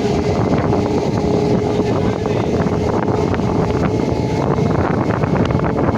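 Local train running past at speed: a steady, loud rush of wheel and rail noise, full of rapid clicks and clatter.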